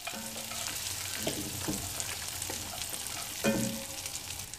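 Nuts and seeds frying in melted butter in a pan, a steady sizzle, with a few short scrapes and knocks of a plastic slotted spatula stirring them, the loudest about three and a half seconds in.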